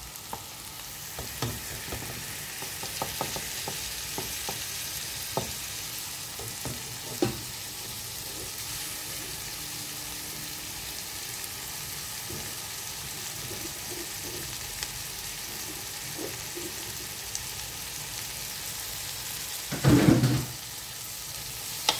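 Shrimp masala sizzling steadily in a pot, with scattered light clicks and knocks as vegetables are dropped in and a wooden spoon moves through them. There is one brief louder sound near the end.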